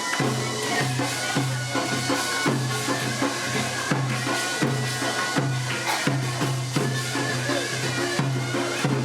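Korean traditional processional music: a reedy wind instrument plays held notes over a steady drum beat of about three beats every two seconds.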